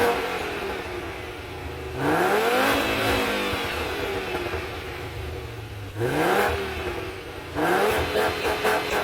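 VW Bora's 2.3 V5 engine through its stock exhaust with catalytic converter, revved repeatedly. Revs die away at first, then rise about 2 seconds in, blip briefly about 6 seconds in, and climb again near the end, where they are held.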